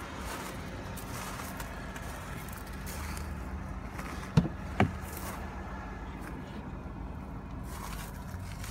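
A car door being opened: two sharp clicks about half a second apart as the handle is pulled and the latch releases, over a steady low hum.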